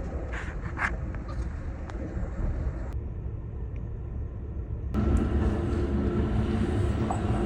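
Amtrak Empire Builder passenger train running, a steady low rumble of the moving train, with the sound changing abruptly about three and five seconds in.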